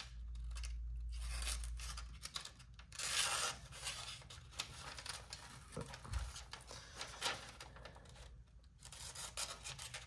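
Leatherman ARC multi-tool's knife blade cutting through something in a series of short strokes, with the strongest stroke a little after three seconds in.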